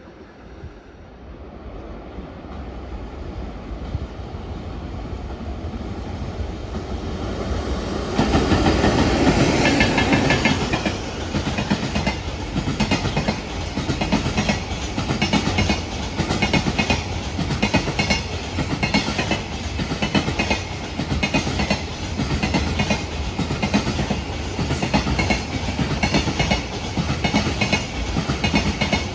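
JR Freight container train passing close by: the sound builds for about eight seconds, jumps up sharply as the train arrives, then the container wagons' wheels clatter over the rail joints in a steady, rhythmic clickety-clack.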